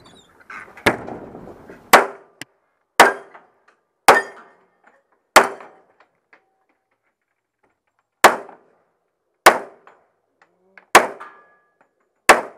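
A string of about ten gunshots, sharp cracks roughly a second apart, with a pause of about three seconds midway.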